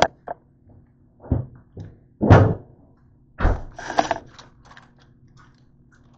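A series of knocks and thuds on a kitchen counter, the loudest about two seconds in, then a plastic bag crinkling and rustling as it is handled, fading out about five seconds in.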